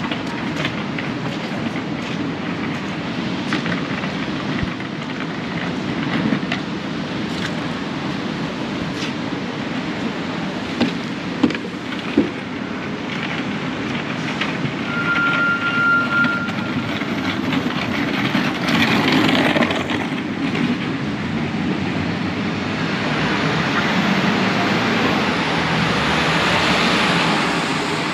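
Busy city street traffic: a steady rumble of vehicles with scattered clicks and knocks, a brief high-pitched squeal about halfway through, and louder passing vehicles in the last third.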